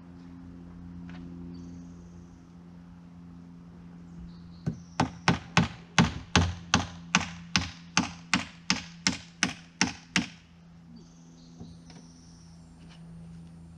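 Hand hammer driving a nail into wood siding: a quick run of about eighteen strikes, roughly three a second, starting about four and a half seconds in and stopping near the ten-second mark.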